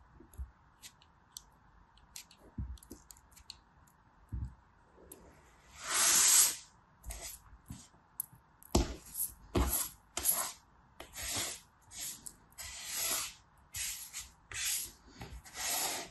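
Kinetic sand being cut and worked by hand. First faint crackly ticks as a knife slices it, then from about five seconds in a run of about a dozen loud grainy swishes, each under a second, as the sand is crumbled and rubbed.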